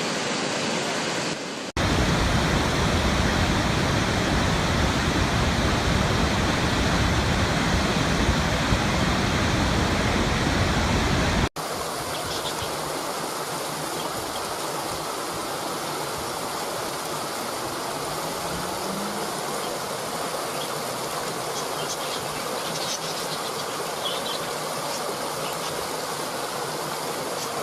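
Rushing water, like a waterfall or stream, in three back-to-back segments with abrupt cuts. A louder, deeper rush starts about two seconds in, and about eleven seconds in it gives way to a softer, thinner rush.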